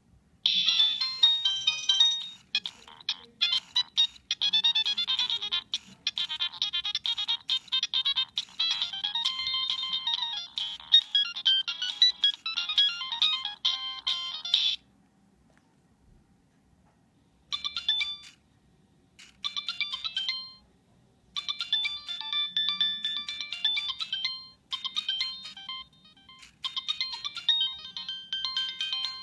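Nokia 3586 mobile phone ringtone playing: a fast, dense run of thin, high electronic notes for about fourteen seconds, which then cuts off. After about three seconds of quiet, a tune starts in short phrases separated by brief gaps.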